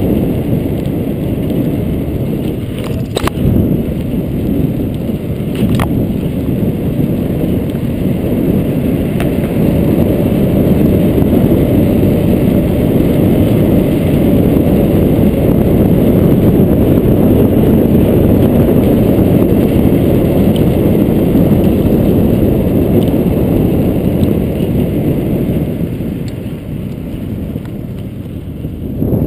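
Wind buffeting the camera's microphone while riding a bicycle, mixed with the rumble of knobby tyres over paving stones and concrete sidewalk. A couple of sharp knocks come a few seconds in, and the noise eases near the end.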